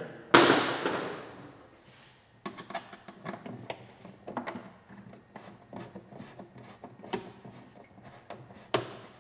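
A loud metal clatter of hand tools as a T-handle driver is picked out, then a run of irregular light clicks and taps as the driver turns fasteners into the J-nuts under the fiberglass undertail.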